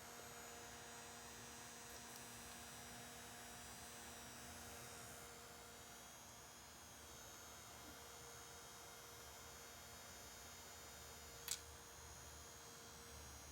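Faint steady hum of a small electric fan motor blowing over freshly applied wig glue to dry it until tacky; it stops near the end. A single sharp click about eleven and a half seconds in.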